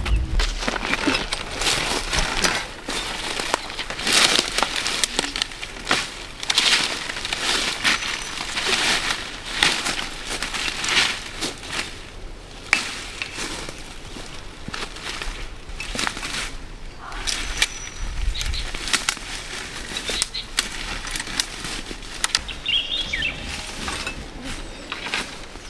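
Irregular rustling and crackling of leaves and plant stems, coming in uneven swishes. A bird chirps briefly near the end.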